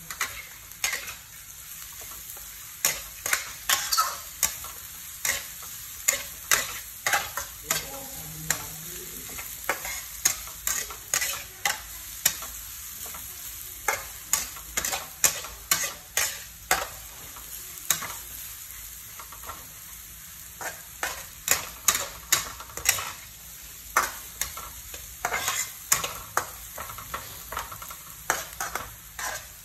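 Metal spatula stir-frying sliced lemongrass in a wok: repeated sharp scraping strokes against the pan, one or two a second with a short lull about two-thirds of the way through, over a steady sizzle.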